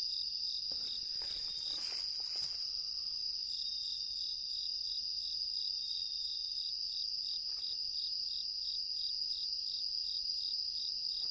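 Night chorus of singing insects: one gives a continuous high-pitched trill while another chirps in a regular pulse about three times a second. A brief rustle comes about a second in.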